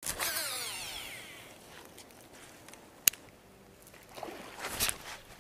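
Baitcasting reel spool spinning out on a cast: a whine that falls in pitch and fades over about a second and a half. A single sharp click about three seconds in, then brief rustling noises near the end.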